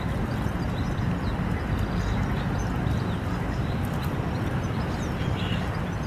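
Shallow water churned and splashing as spawning crucian carp thrash right at the bank, over a steady low rumble that runs throughout.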